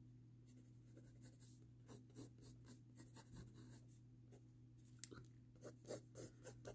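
Faint pencil strokes scratching on sketchbook paper while sketching, coming in short, irregular strokes that grow louder and more frequent about five seconds in.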